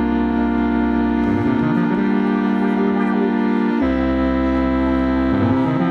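Keyboard playing long held chords live, with a change to a new chord a little under four seconds in and the low notes shifting underneath.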